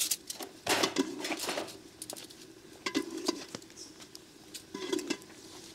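Scattered clinks and knocks of a utensil against a metal cooking pot, with a short scraping scrape about a second in, as beef stew is scooped out of the pot.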